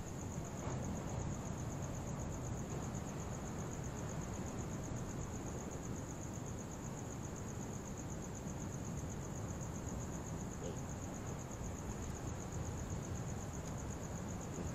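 A chorus of crickets trilling steadily in a fast, even, high-pitched pulse, over a low, steady background rumble.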